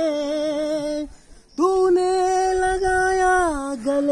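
A man singing a Hindi film song, holding long wavering notes on drawn-out vowels. There is a short break about a second in, then a long held note that slides down near the end.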